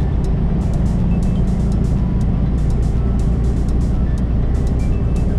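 Semi truck's diesel engine and road noise heard from inside the cab while driving at speed, a steady low drone with scattered light rattles and clicks.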